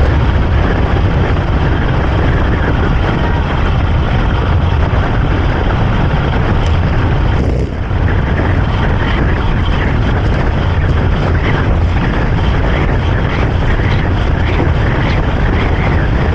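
Strong wind buffeting the microphone of a camera on a moving bicycle: a loud, steady low rumble, dipping briefly about eight seconds in.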